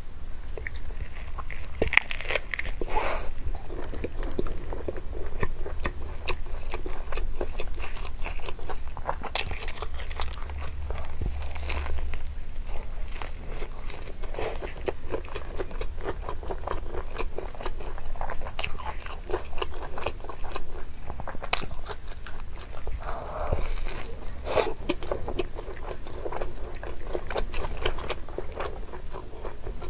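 A man biting into and chewing crunchy fried food close to the microphone: irregular crisp crunches and chewing throughout, with a few louder bites along the way.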